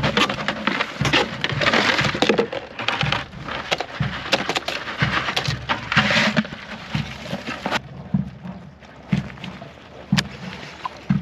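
Live crabs being rummaged through and handled in a plastic bucket: a dense clatter of shells scraping and crackling against the plastic. It stops about eight seconds in, leaving a few soft knocks.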